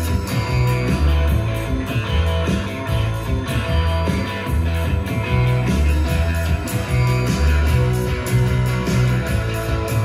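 A Harman Kardon Luna Bluetooth speaker playing a guitar-driven rock song with a heavy, pulsing bass line, heard through the room.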